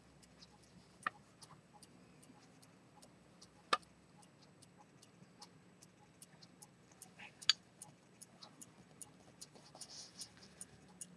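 An 18k gold key-wound fusee pocket watch with a pivoted-detent chronometer escapement running, its escapement giving faint, even ticking at about five ticks a second. A few louder clicks come from the gold case lids being handled and opened, one about a second in, one near four seconds and one past seven seconds.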